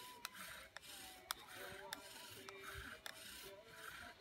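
Wooden bow-drill spindle rubbing in its hearth board as the bow is sawn back and forth, a rasping rub with each stroke about once a second, with a few sharp clicks: friction fire-lighting.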